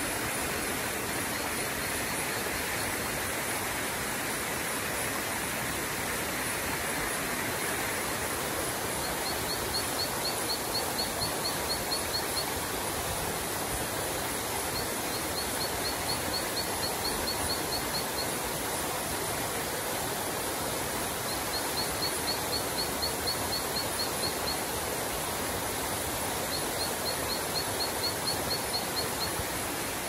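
Night insects calling over a steady hiss: a high, even chorus runs throughout, and about every six seconds another insect gives a rapid run of high ticks lasting about three seconds, four times in all.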